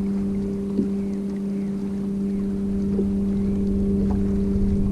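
Boat motor running with a steady, even hum.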